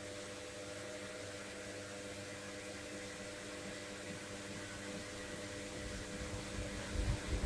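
Logik washing machine in its final spin cycle: a steady motor hum with a faint whine, and low irregular thuds from the drum and load growing louder near the end.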